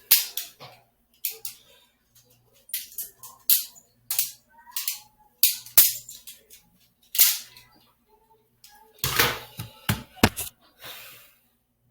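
Balisong (butterfly knife) being flipped: the handles and blade clack against each other in sharp, scattered clicks, with a quick run of several loud clacks about nine seconds in.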